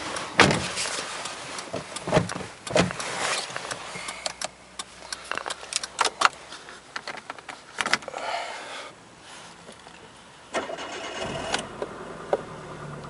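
Scattered clicks and knocks of buttons being pressed in a 2004 Hyundai Elantra's cabin. About ten and a half seconds in, the car's four-cylinder engine starts with a brief louder burst and settles into a steady idle.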